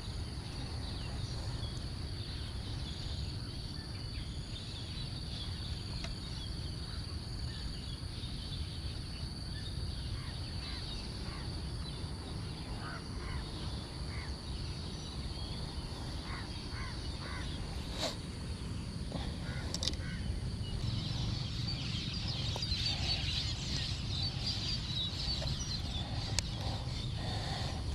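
Short clucking bird calls over a steady high-pitched drone, with a few sharp clicks in the second half.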